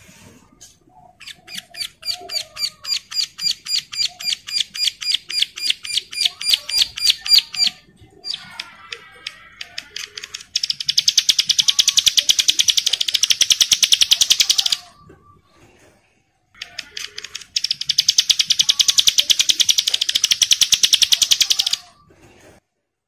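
A ciblek, a caged prinia in breeding condition, calling loudly. It starts with a run of sharp repeated notes that speed up over about six seconds, then gives two long, rapid buzzy trills of about four seconds each with a short break between.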